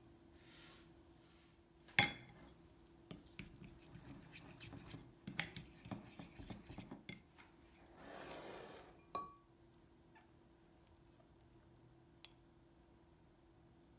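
Kitchen dishes being handled: a glass or ceramic dish is set down with a sharp ringing clink, then light clatter and knocks follow. There is a short rustle, then another clink.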